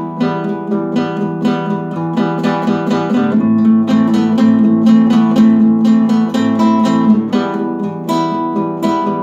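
Classical acoustic guitar played solo, plucked and strummed chords at a steady pace with no singing.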